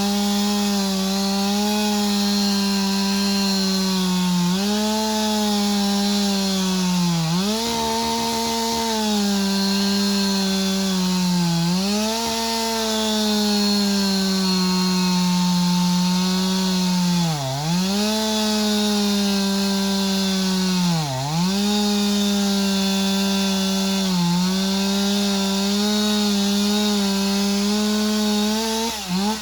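A Stihl MS362 two-stroke chainsaw at full throttle cutting into a walnut trunk. The engine note sags several times as the chain bogs in the wood, then falls away at the end as the throttle is released.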